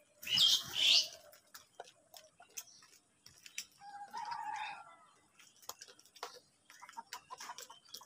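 House crows squabbling over food: a loud flurry of wings and scuffling about half a second in, then a single harsh caw of about a second around four seconds in, with light pecking taps in between.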